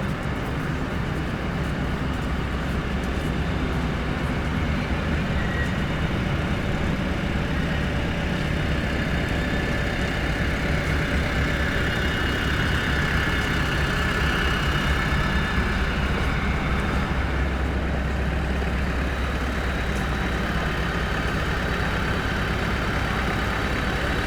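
A steady low engine hum, with general street noise over it.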